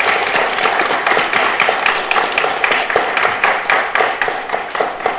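Applause: many hands clapping in a dense, irregular patter that starts to thin out near the end.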